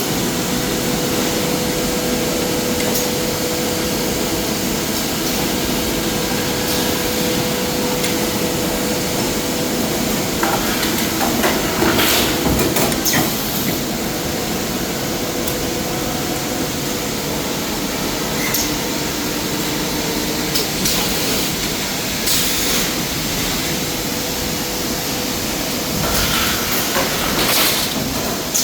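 Automatic tube bending machine running on a factory floor: a steady mechanical noise with a faint hum, broken by short hissing bursts and knocks a few times.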